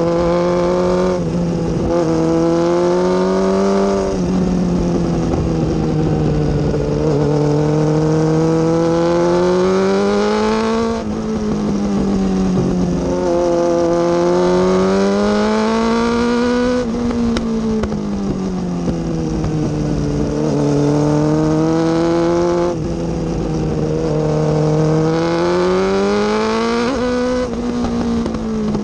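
Motorcycle engine under way, its note rising as the throttle opens out of each bend and sagging as it closes into the next, with sudden drops in pitch at gear changes. Wind rush runs underneath.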